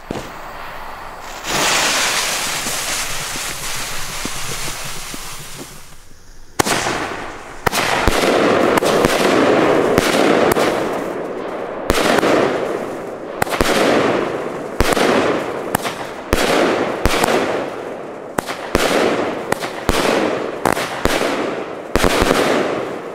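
Firework battery (cake) firing: a steady hiss for a few seconds, then a long series of sharp bangs about a second apart, coming faster toward the end, each followed by the hiss and crackle of a bursting star shell.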